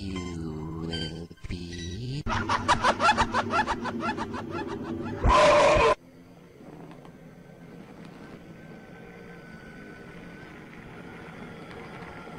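Eerie soundtrack of a horror clip: pitched, wavering sounds and a fast stuttering pulse build to a loud burst, then cut off suddenly about six seconds in, leaving a faint low hum.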